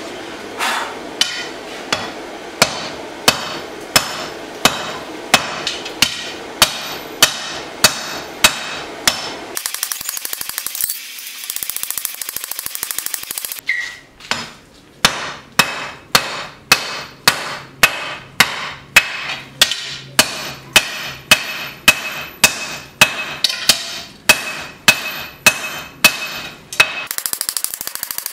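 Hand hammer striking red-hot 80CrV2 steel on an anvil, forging in a knife tip, about one and a half blows a second, with a ringing note after each blow. The hammering breaks off for about four seconds of steady rushing noise, then starts again at the same pace.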